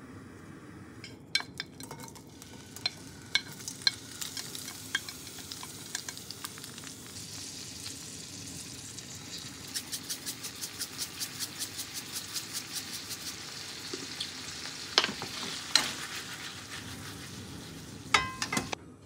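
Cubes of steak sizzling in an iron frying pan, with scattered clicks and knocks as the meat is stirred and tossed with a utensil. In the middle, a run of quick even ticks, about five a second, as black pepper is shaken in from a tin.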